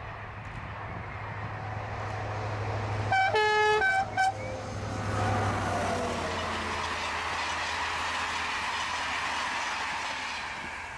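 Diesel locomotive hauling Corail passenger coaches approaches and passes. About three seconds in, it sounds its horn in one blast of under a second, then two short toots. The engine's drone gives way to the rolling noise of the coaches on the rails, which fades near the end.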